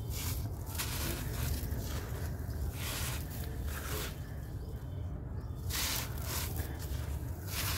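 Dry, gritty sand-and-dirt blocks crushed and crumbled by hand, with loose grit and dust pouring and scattering onto a dusty floor: crunchy, grainy rustles that come in repeated bursts, the loudest about six seconds in, over a steady low rumble.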